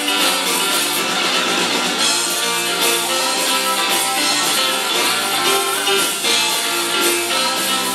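Live blues band playing, with an electric guitar taking melodic lead lines over a steady drum beat and bass.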